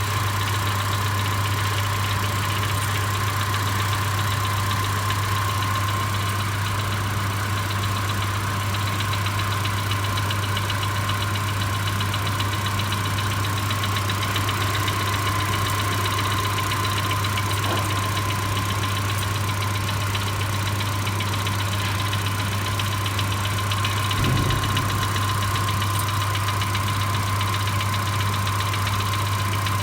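Citroën C4's 1.6 NFU four-cylinder petrol engine idling steadily with a very faint knock. A mechanic, who hears no knock from the cylinder head, takes it for a piston loose on its gudgeon pin. There is a brief low thump about 24 seconds in.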